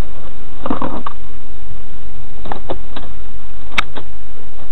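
Loud, distorted steady noise inside a moving car, with a knock about a second in and a few sharp clicks in the second half.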